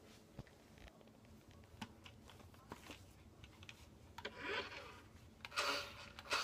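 Faint handling noise of a phone being moved: scattered light clicks and rustles, then two short, louder rustling bursts, one about four seconds in and one near the end.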